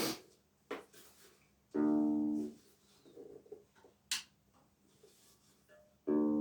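Homemade cigar box guitar with a piezo pickup played through a small Roland amp: a few sharp clicks and knocks from handling the jack and leads, then a plucked note about two seconds in that rings for under a second, and another note starting near the end.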